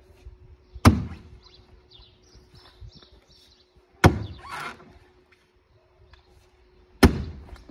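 Three heavy sledgehammer blows about three seconds apart, each a sudden thud that dies away quickly; the second trails on for about half a second.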